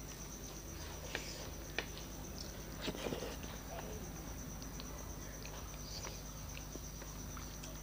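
Soft, sparse eating sounds from rice and dal eaten by hand: fingers working the food on a plate and a few faint, wet mouth clicks while chewing, with the most noticeable clicks about a second and three seconds in.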